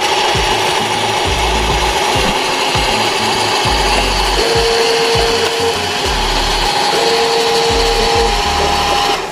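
Electric tipping motors of remote-control model dump trucks whining steadily as the loaded beds rise, with a second, lower motor tone starting and stopping twice. Dirt and gravel slide out of the tilted beds.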